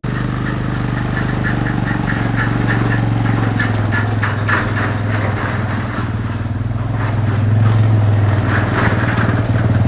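ATV (four-wheeler) engine running steadily as it drives, pulling a trailer, growing louder about three-quarters of the way through as it comes close.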